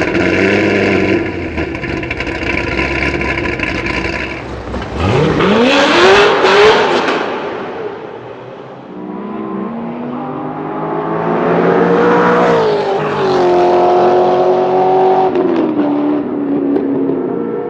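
Chevrolet Corvette's LS7 7.0-litre V8 running at a steady pitch, then accelerating hard with a sharply rising pitch about five seconds in, loudest around six seconds, before fading. It builds again around twelve seconds, holds a steady pitch for a few seconds and drops off near the end.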